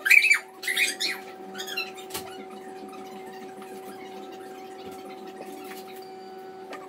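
Several short, high-pitched squeaks in the first two seconds, some bending in pitch, then a steady electrical hum.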